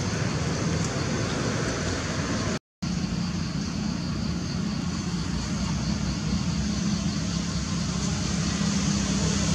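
Steady mechanical rumble and hiss with a low, even hum, cutting out completely for an instant about two and a half seconds in.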